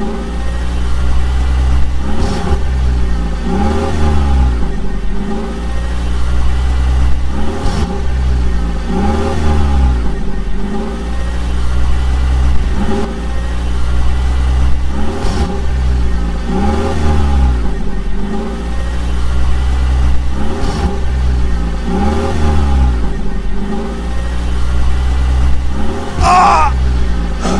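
Vehicle engine revving, its pitch rising and falling in a regular cycle about every two seconds over a steady low drone. Near the end comes a brief wavering higher whine.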